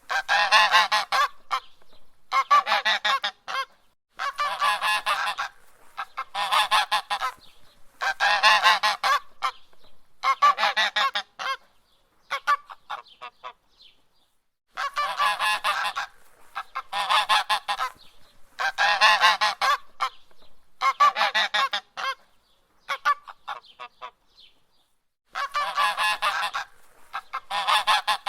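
A goose honking: loud bursts of harsh honks, each about a second long, coming roughly every two seconds, with a couple of brief pauses.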